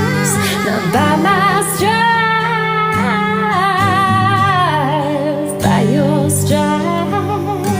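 Christian worship song: a woman singing long held, wavering notes over a steady instrumental backing.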